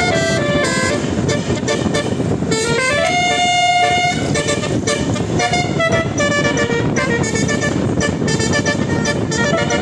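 Indonesian bus 'telolet' horn, a multi-tone air horn, playing a melody of short stepped notes. About two and a half seconds in it slides up into one held note, then goes on with more quick notes.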